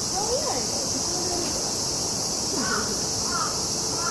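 Cicadas droning in a steady, high-pitched chorus that does not change, with fainter rising and falling voices underneath.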